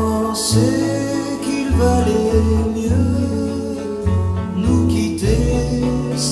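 French pop song: a man singing over acoustic guitar and bass.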